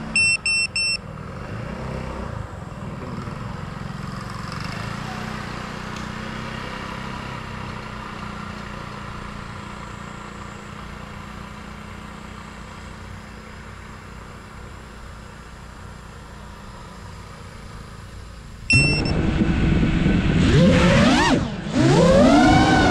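FPV quadcopter: three short electronic beeps near the start, then a low steady hum. About nineteen seconds in there is one more beep, and the motors spin up loudly for takeoff, their whine gliding up and down with the throttle.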